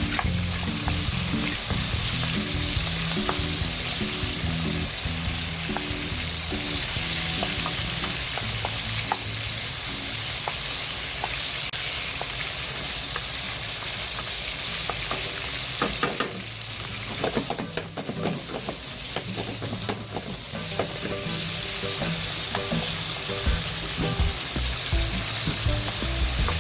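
Meat sizzling as it is sautéed in hot chili-bean-paste oil in a pan over a high flame, with clicks of a spatula stirring it. The sizzle dips for a few seconds about two-thirds of the way through, then picks up again.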